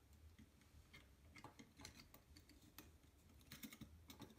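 Near silence with faint, scattered clicks and light taps of a plastic model axle and its motor wires being handled, over a low steady hum.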